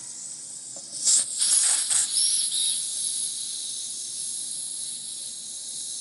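Butane hissing from a refill can's nozzle pressed into the filler valve of a Zaima tall butane lighter as the tank is filled. It spurts louder and unevenly about a second in, then settles to a steady hiss.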